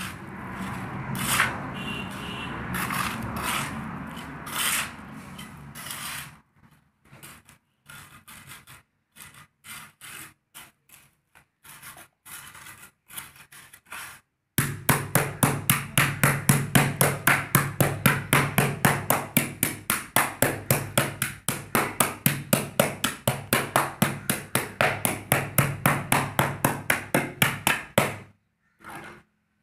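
A trowel scraping and spreading a coarse concrete-and-gravel mix in a metal tile mould. The scrapes are irregular at first and broken up by short pauses. About halfway in they turn into fast, even strokes, roughly three a second, as the surface is smoothed.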